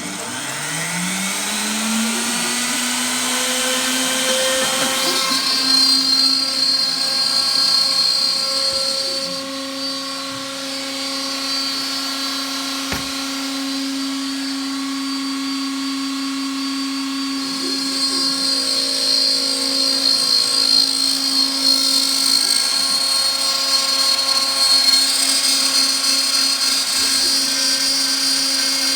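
The spindle motor of a homemade CNC router spinning up, its pitch rising over the first two seconds, then running at a steady speed with a high whine that comes and goes.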